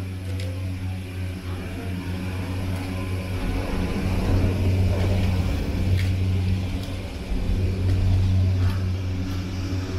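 Steady low electric hum from inside a moving mountain passenger vehicle, growing louder a few seconds in, with a few faint clicks.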